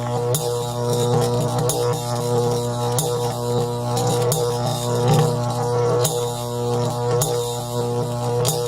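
A motor sound effect: a steady low drone with a stack of even overtones, crossed by a sharp tick roughly once a second.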